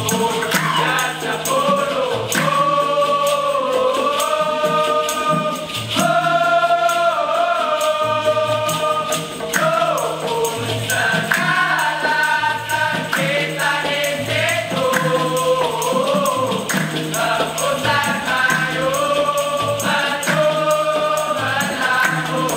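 Malay seated chorus singing a melody in unison, with many sharp rhythmic hand claps over a band of drums and percussion.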